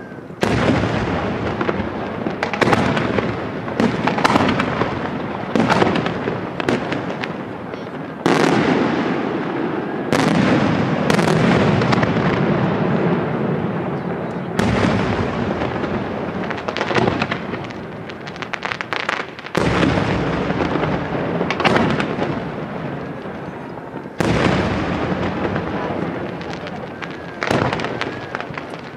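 Aerial firework shells bursting in a dense barrage: sharp bangs one after another over a continuous rolling rumble, with several heavier volleys starting suddenly through the stretch.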